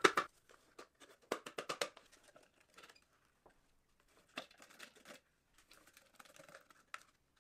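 Foil packets of dried sourdough starter crinkling as they are handled and emptied into small plastic tubs. A quick run of light clicks comes about a second and a half in, with softer scattered taps and scrapes after.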